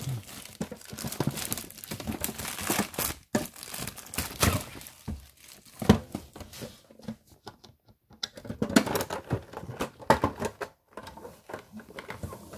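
Clear plastic shrink-wrap crinkling and tearing as it is peeled off a metal collector's tin, with a few sharp clicks from handling the tin.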